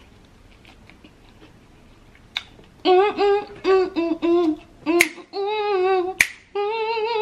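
A woman's voice singing a tune in held, wavering notes, with sharp finger snaps to it, three snaps in all, the first a couple of seconds in.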